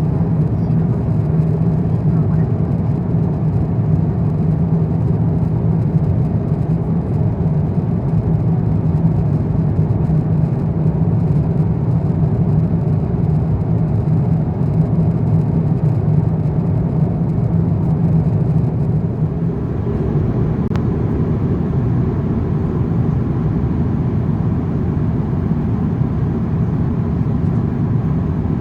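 Steady cabin noise of an Airbus A350-900 in flight: a constant low rumble of engines and airflow heard inside the cabin, easing slightly about two-thirds of the way through.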